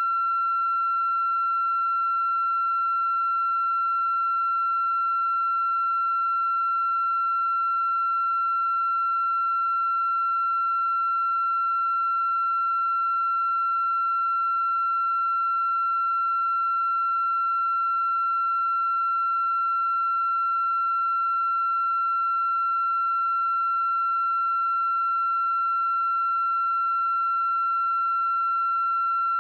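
A continuous electronic tone held at one high pitch, with fainter overtones above it, never changing in pitch or loudness.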